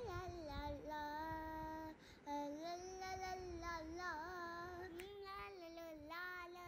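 A high voice singing a slow melody in long, gliding held notes, as a background song.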